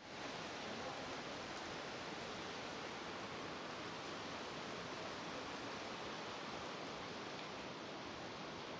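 Heavy rain falling in a steady downpour onto a concrete storm canal and its running water: a continuous, even rush with no let-up.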